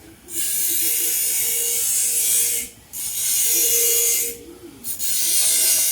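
Ratchet wrench clicking rapidly in three spells, each one to two and a half seconds long with short pauses between, as a nut is turned.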